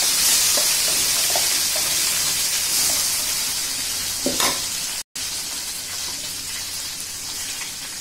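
Ground ridge gourd chutney sizzling as it is spooned into hot oil with tempered mustard seeds and curry leaves in a kadai, a steady hiss that slowly dies down. A spoon scrapes and knocks against the steel mixer jar, once louder about four seconds in, and the sound cuts out for an instant just after five seconds.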